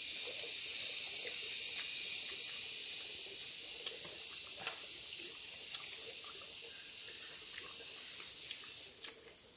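Steady high-pitched chorus of insects, with a faint pulsing trill running through it. A few soft clicks and taps come from hands handling food.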